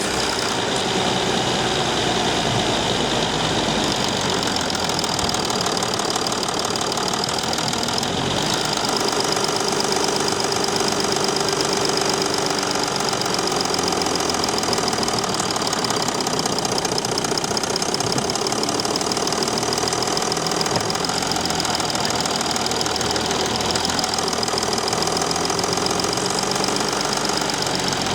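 Mercedes Sprinter 219 CDI V6 diesel engine running steadily, with a brief change in its sound about eight seconds in.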